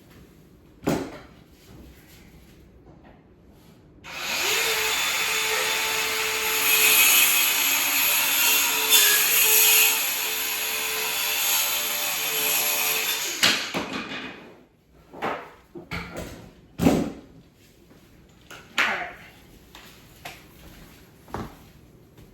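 A cordless power saw starts about four seconds in and cuts through wood for about nine seconds with a steady motor whine, then winds down. A few sharp knocks follow.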